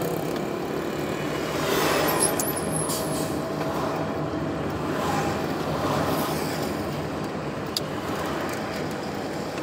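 Steady road and engine noise heard from inside a moving car, with oncoming traffic passing. There is a louder swell about two seconds in as an oncoming lorry goes by.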